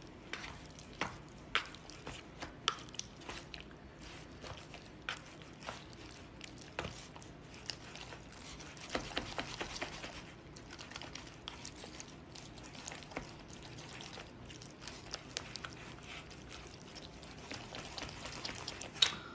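Chopsticks stirring and mixing noodles in thick sauce (jajangmyeon), with scattered sharp clicks of the chopsticks, wet squishing and some chewing; the mixing gets denser about halfway through.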